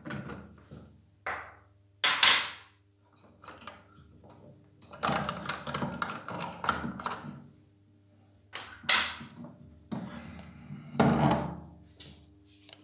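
A threaded steel rod carrying plastic saucers knocking and scraping against a pressure washer's plastic handle frame as it is slid out: a series of separate thunks, with a couple of seconds of rattling scrapes in the middle.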